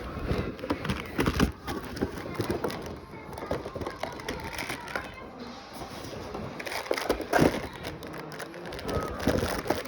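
Toy packaging being handled and opened by hand: irregular rustling, crinkling and clicks, with louder knocks about a second and a half in and again around seven seconds.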